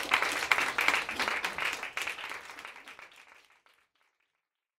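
Audience applauding, fading away over the first three to four seconds.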